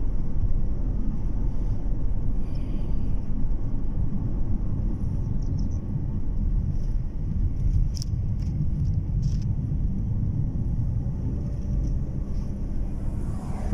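A car driving, its engine and tyre noise making a steady low rumble.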